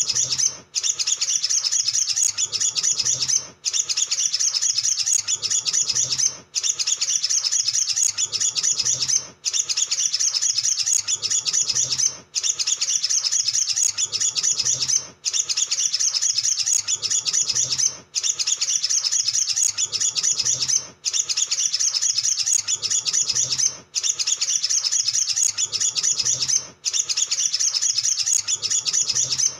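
Olive-backed sunbird singing a fast, unbroken run of high chips and trills. The song comes in near-identical phrases about three seconds long, each ended by a brief pause.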